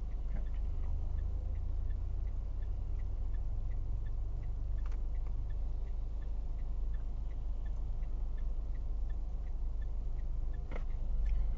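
Stationary car's cabin with the engine idling as a steady low rumble, and a light, even ticking about twice a second. There is a short knock near the end.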